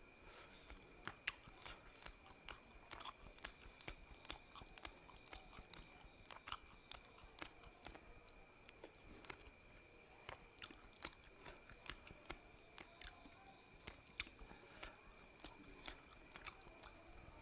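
Faint close-miked eating sounds: chewing with frequent small irregular clicks and smacks of the mouth, over a faint steady high whine.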